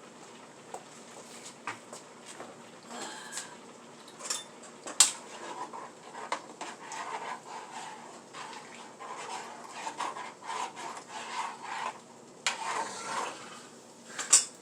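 Dishes and utensils clattering and scraping while food is handled in the kitchen: scattered clinks, the loudest a sharp one about five seconds in and another near the end.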